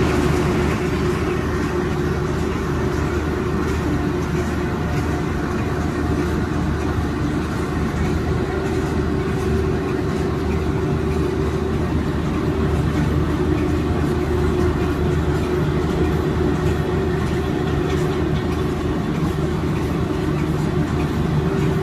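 Six-colour central-impression flexographic printing press running steadily, printing PE film. It is a constant mechanical hum with a steady tone over it.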